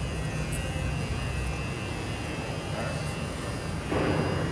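Steady low drone of a large exhibition hall's background noise, with faint distant voices that get a little louder near the end.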